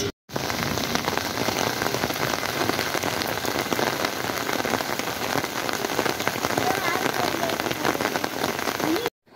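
Steady rain, many individual drops striking a plastic tarp shelter close by. The sound drops out briefly just after the start and again near the end.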